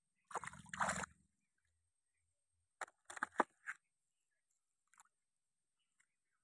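Water splashing and sloshing in the shallows for about a second, then a quick run of sharp splashes or knocks about three seconds in.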